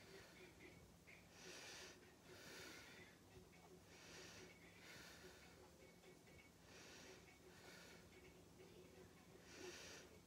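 Near silence with soft, irregular breaths close to the microphone, about one every second or two, over a faint steady hum.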